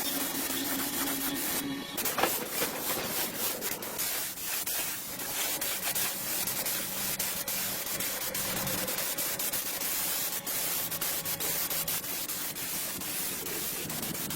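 Steady rubbing, scraping noise with many small clicks, as of abrasive work on a surface.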